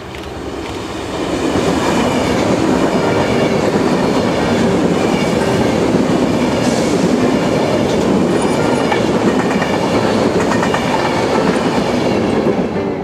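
Electric passenger train passing at speed along the station's through track, its wheels clattering over the rail joints. The noise builds over the first second or two, holds steady while the coaches go by, and falls away at the end.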